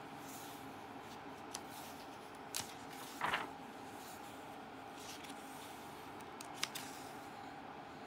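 A magazine page turned by hand: a brief paper rustle about three seconds in, with a few faint ticks of paper and fingers around it over a low steady hum.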